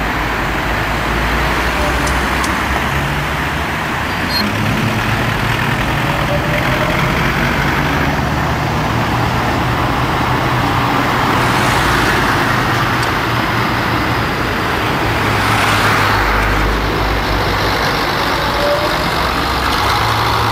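Steady city street traffic noise: cars and buses, trolleybuses among them, driving past, with a low engine hum beneath.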